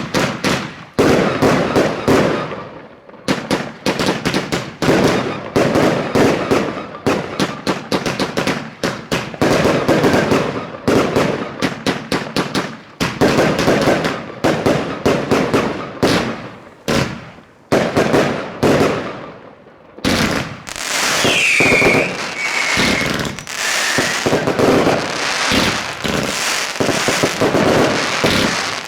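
Fireworks going off in rapid, overlapping bangs and cracks, thickening into an almost continuous crackle about two-thirds of the way in, with a few short whistles over it.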